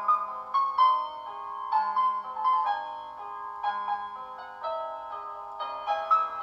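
Background piano music: a slow melody of ringing notes over held low bass notes.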